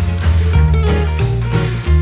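Upbeat background music with a bass line and recurring drum hits.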